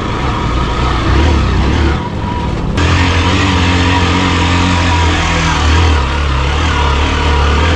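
Hero XPulse 200's single-cylinder engine running steadily on an off-road trail. It drops away briefly about two seconds in, then picks back up abruptly.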